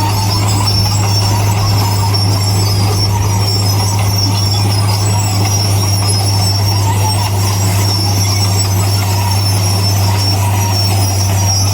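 Bulldozer running steadily under load, its diesel engine giving a constant low drone while the steel tracks squeal high and metallic.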